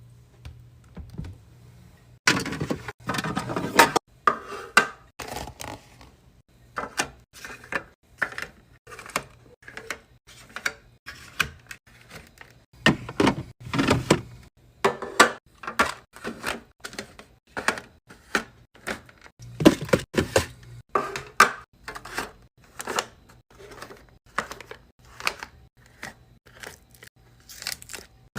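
Food containers, jars and packaging being handled and set down while a fridge is restocked: an irregular string of knocks, clinks and taps. There is a longer run of continuous noise a couple of seconds in.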